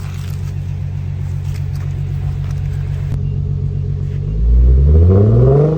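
Nissan VQ V6 idling steadily through a Borla X-pipe-and-resonator exhaust, then revved hard a little past four seconds in, the pitch climbing quickly.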